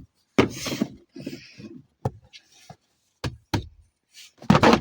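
A few sharp knocks and short clattering sounds at irregular intervals, with brief quiet gaps between them.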